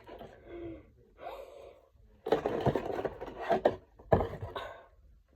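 Irregular rubbing and rustling noises mixed with breaths, in several short noisy bursts, the loudest about two to three seconds in and again about four seconds in.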